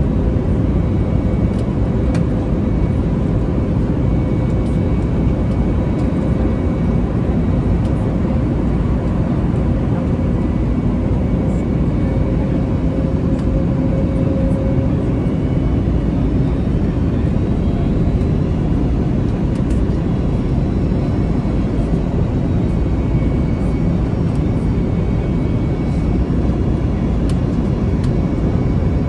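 Steady in-cabin noise of an Airbus A321neo airliner on its descent: an even rumble of engines and airflow, with faint steady whining tones, one of which fades about halfway through.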